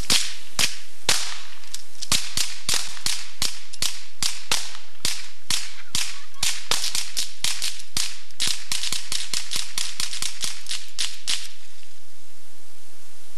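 Rapid rifle fire: dozens of sharp shots, about two a second at first and quickening to several a second, stopping suddenly about eleven seconds in.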